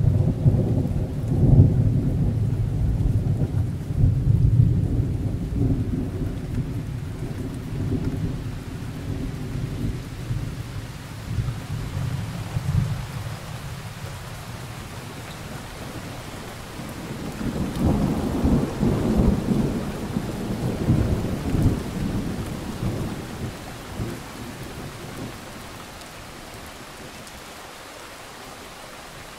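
Thunder rolling over steady rain. A loud peal breaks right at the start and rumbles away over about twelve seconds, and a second, softer rumble swells about seventeen seconds in and fades, leaving only the hiss of the rain.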